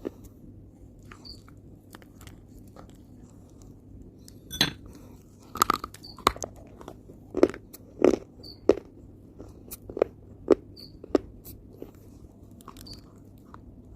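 Chewing chunks of dry earth: a series of sharp crunches that starts about four and a half seconds in, comes about once or twice a second, and stops about eleven seconds in.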